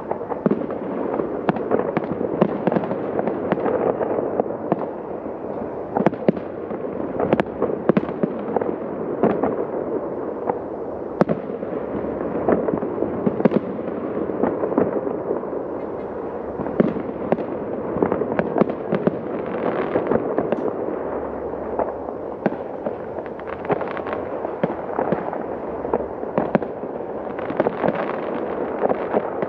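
Professional aerial fireworks display: shells bursting in sharp, irregular bangs, often several a second, over a continuous dense din of overlapping bursts.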